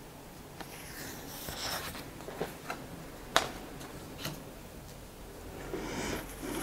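Sheets of printer paper rustling and sliding on a wooden tabletop as a hand lays them down, with a few faint taps, the sharpest about three and a half seconds in.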